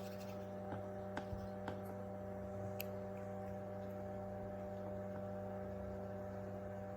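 Steady hum of a small fume extractor fan running, with a few faint light ticks in the first three seconds.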